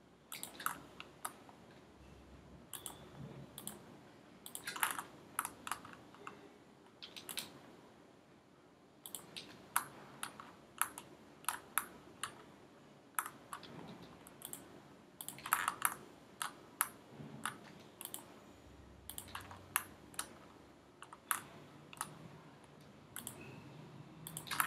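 Computer mouse and keyboard clicking: sharp, irregular clicks, often two to four in quick succession, as parts of a 3D model are selected one by one.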